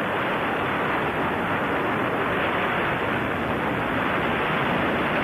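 Delta rocket climbing on its main engine and six strap-on solid boosters: a steady, even roar with no changes.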